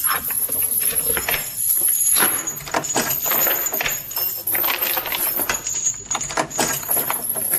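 Irregular knocking, clattering and creaking from a radio sound effect: the noises of the big house shifting as it subsides with its foundations dug out.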